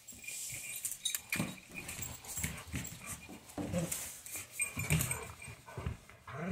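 Dogs vocalising in short whines and grumbles about once a second, with claws clicking on a tile floor.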